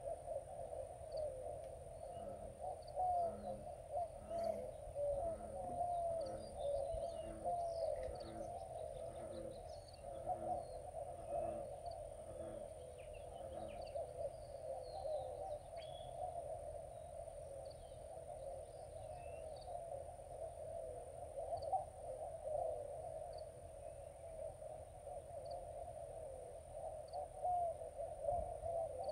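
Riverside wildlife: a bird calling a run of low, evenly repeated coos from about two seconds in until about fourteen seconds, over a steady crackling chorus and faint high chirps.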